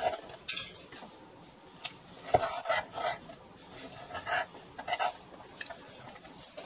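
Chef's knife cutting raw ahi tuna into cubes on a wooden cutting board: irregular knocks as the blade chops through the fish and meets the board.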